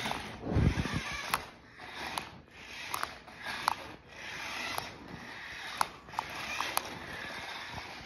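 Small electric motor and plastic gears of a toy remote-control monster truck whirring in uneven spurts as the controls are worked, with several sharp clicks along the way.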